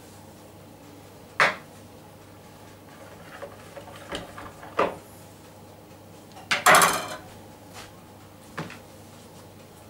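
Kitchen utensils knocked and clattered on a worktop: a sharp knock about a second and a half in, a few smaller knocks around four to five seconds, and the loudest, a short rattling clatter, about seven seconds in.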